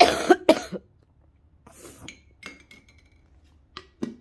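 A woman coughing twice in quick succession, loud, followed by a few faint clinks and short knocks.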